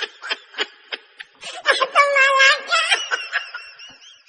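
A high-pitched, cartoon-style laughing sound effect: a quick run of short giggles about four or five a second, a longer wavering laugh a little before the middle, then fainter repeated high squeaks trailing off.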